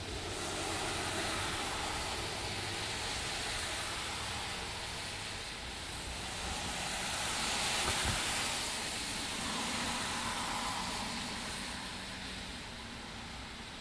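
Cars driving past on a wet street, tyres hissing through the water, with a steady rain hiss underneath. The hiss swells and fades as each car passes, the loudest pass about eight seconds in.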